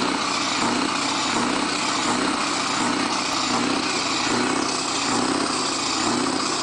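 Scania R620's V8 diesel engine idling, heard close to its side exhaust outlet, with a slow regular swell about every three-quarters of a second.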